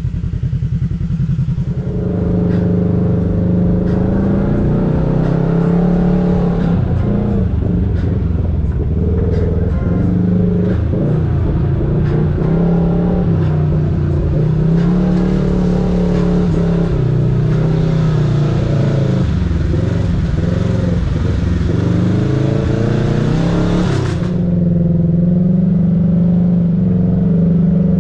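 Side-by-side UTV engine running under changing throttle on a rough off-road trail, its pitch rising and falling over and over. About 24 seconds in, a hissy upper layer cuts off abruptly and the engine runs steadier.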